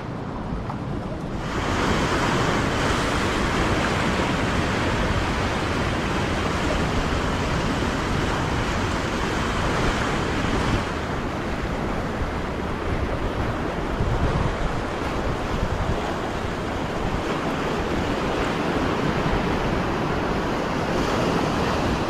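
Ocean surf washing and breaking against sea rocks, a steady rush of water with wind buffeting the microphone; it becomes louder about a second and a half in.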